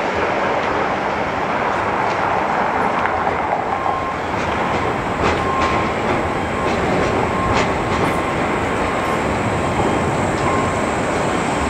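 Modern low-floor articulated tram rolling toward and past on street track: a steady rumble of steel wheels on rail, with a few sharp clacks in the middle and a faint squeal that comes and goes.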